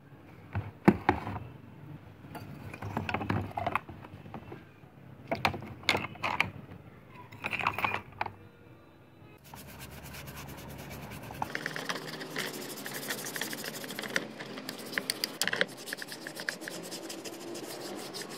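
Rusty steel parts of an old foot air pump knocking and scraping in a plastic basin of soapy water, then scrubbed with a hand brush in quick, steady rubbing strokes from about halfway.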